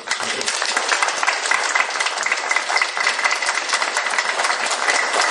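Audience applauding, many hands clapping together; it starts sharply at the end of a spoken speech and holds steady.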